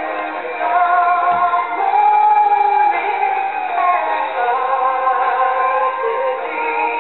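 A song playing: a sung vocal melody over instrumental backing.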